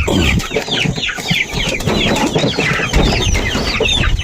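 A flock of chickens with chicks, the chicks peeping in dense, high, falling chirps and the hens clucking, as they are fed.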